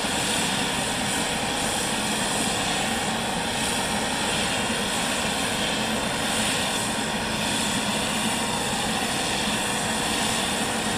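Engine of a heavy aircraft tow tractor running steadily under load as it pulls an aircraft, heard as an even drone and hiss with a faint steady hum.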